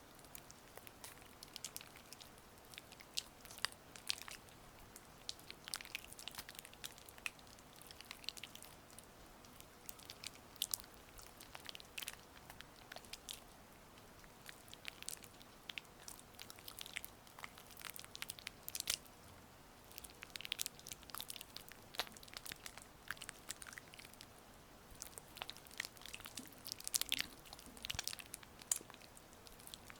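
A gua sha scraper gliding over oiled skin close to the microphone, making irregular wet, sticky clicks and smacks. A faint steady rain hiss runs underneath.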